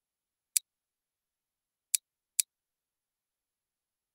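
Three sharp computer mouse clicks: one about half a second in, then two close together about two seconds in.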